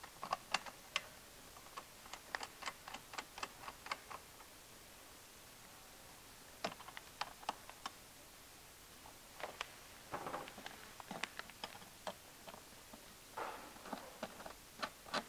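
Scattered light clicks and taps, in irregular clusters, of parts being handled: a firewall bracket plate being fitted over the heater lines of an A/C evaporator unit and knocking against its housing and fittings.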